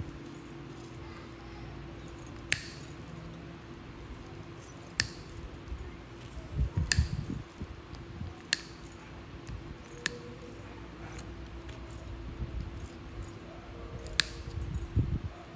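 Nail nippers snapping through a thickened, crumbling fungal toenail: about six sharp cracks, spaced one and a half to four seconds apart, with soft handling rustle between cuts.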